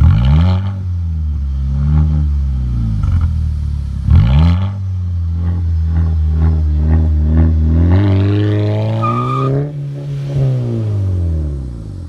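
Twin-turbo Toyota 2JZ straight-six swapped into a VW Golf GTI, heard at the tailpipe. It gives two sharp rev blips, one at the start and one about four seconds in, and settles to idle between them. Near the end it revs up for about a second and a half and falls back.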